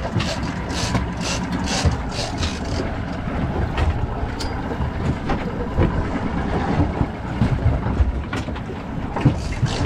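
Sport-fishing boat's engines running at slow speed, with water splashing against the hull in short repeated strokes that are thickest over the first three seconds.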